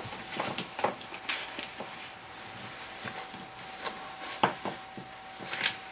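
Scattered light clicks and rustles of hands handling an unplugged DeWalt random orbit sander and its plastic parts, with a faint steady hum underneath.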